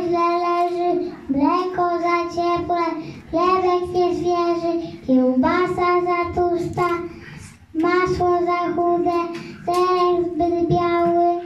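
A child's voice singing a song in short phrases of long held notes, with brief pauses for breath between them.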